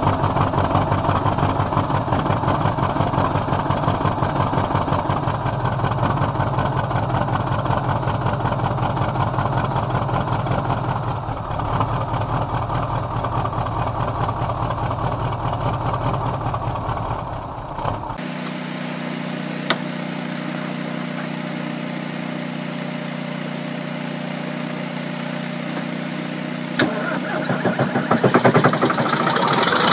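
Big diesel truck engine idling roughly just after a cold start, with a fast even pulse. About 18 seconds in, it cuts to a quieter, steadier machine hum with a couple of sharp clicks, which gets louder near the end.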